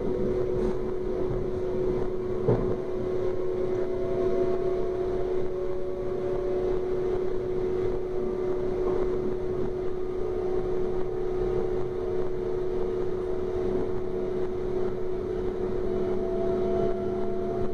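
DB class 425 electric multiple unit running, its traction drive giving a steady whining tone with fainter tones slowly rising above it, over constant rolling noise. A single knock about two and a half seconds in.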